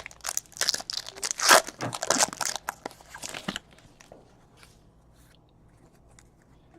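Plastic trading-card pack wrapping being torn and crinkled by hand: a dense run of crackles that stops about three and a half seconds in.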